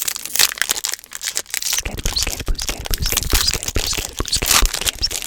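Close-up crinkling and crackling of trading-card pack wrappers being handled and torn open, with dull low knocks joining in from about two seconds in.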